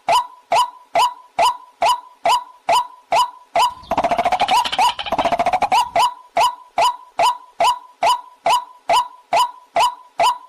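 Recorded waterhen call: a pitched note repeated evenly a little over twice a second, breaking into a rapid, denser run of calls between about four and six seconds in before the even notes resume.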